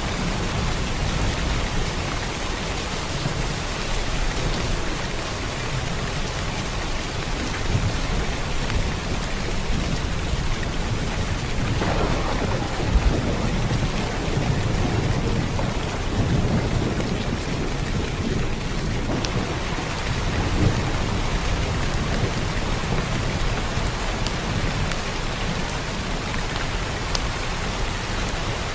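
Steady heavy rain, an even hiss of falling water, over a low rumble of thunder that swells about halfway through.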